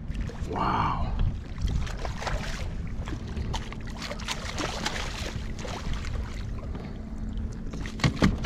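Wind buffeting the microphone over water splashing as a hooked weakfish thrashes at the surface beside a kayak and is scooped into a landing net. Several sharp knocks near the end as the net and fish come aboard the kayak.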